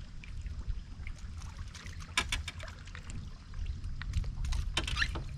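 Scattered light taps and clicks of a bass being handled on a measuring board, over a steady low rumble of wind and water around an open boat.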